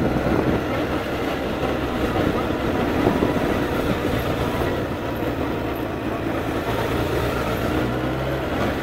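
Suzuki Inazuma 1200 motorcycle's inline-four engine running at low speed while filtering slowly between queued cars, heard as a steady mix of engine and road noise.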